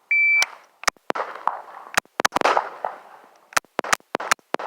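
A shot timer's start beep, then a string of gunshots fired in quick groups with short pauses between, as the shooter works through a timed drill of one, two, three and four rounds on different targets.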